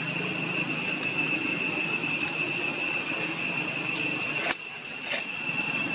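Steady high-pitched insect drone of several held tones, with a short click about four and a half seconds in.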